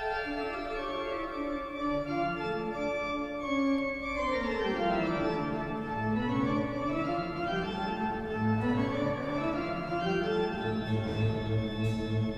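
Background music of held, sustained keyboard tones, organ-like, that slide down in pitch and then climb back up.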